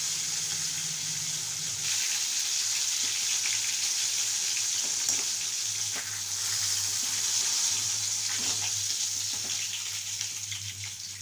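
Rohu fish pieces frying in hot oil in a kadai: a steady sizzle with faint clicks, easing off slightly near the end.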